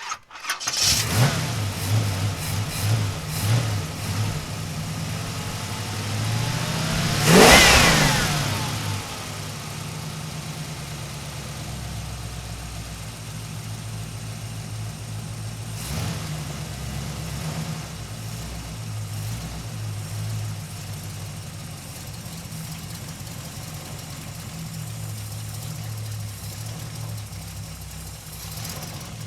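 Muscle car engine starting about a second in and blipped a few times. It is revved hard once, rising and falling quickly, then settles into a steady idle with one short blip midway.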